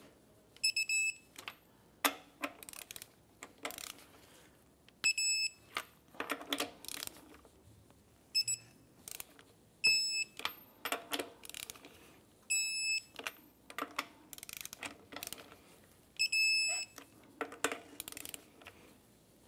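Electronic torque wrench beeping as each lug nut reaches the set torque of 140 foot-pounds: about six short high beeps a few seconds apart. Between them come the clicks and knocks of the socket and ratchet being moved from nut to nut.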